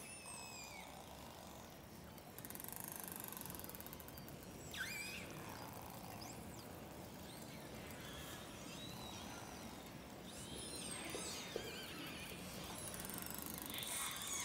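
Underwater hydrophone recording of a pod of orcas under sea ice, played back over loudspeakers: many whistles and calls gliding up and down in pitch, overlapping, with rapid trains of echolocation clicks about two seconds in and again near the end.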